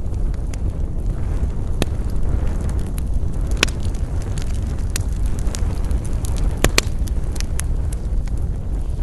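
Wood campfire burning, crackling with scattered sharp pops over a low steady rumble; the loudest pops come about 2 s in, around 3.5 s, and a close pair near 7 s.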